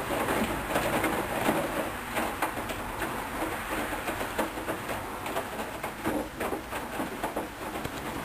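Hoover Dynamic Wash front-loading washing machine in its wash phase: the drum turns and tumbles wet towels, with water sloshing and irregular soft knocks and clicks.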